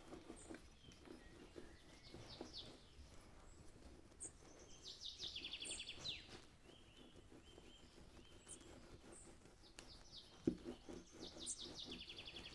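Faint songbird chirping in three short bouts of rapid, repeated high notes, with a single sharp knock about ten seconds in.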